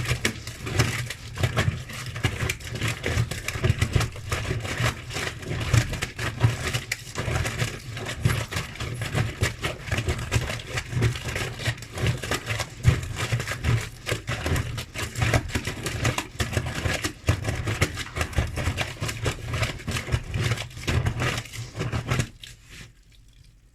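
Front-loading washing machine drum turning its sudsy load, a dense crackling, scraping wash noise over a steady low motor hum, which stops abruptly about 22 seconds in as the drum stops.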